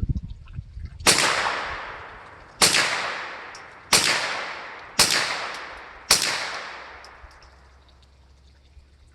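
Ruger PC9 9mm carbine firing five shots at an uneven pace, each crack trailing off in a long echo. A few low handling knocks come before the first shot.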